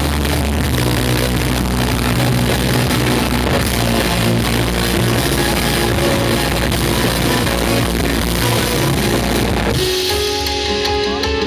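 Instrumental post-rock band playing live: loud distorted guitars, bass and drums together, which drop out suddenly near the end to leave cleaner, sparser picked guitar notes ringing.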